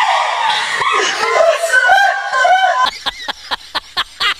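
A woman's high-pitched scream, held with wavering pitch for nearly three seconds, then breaking into quick short bursts of laughter.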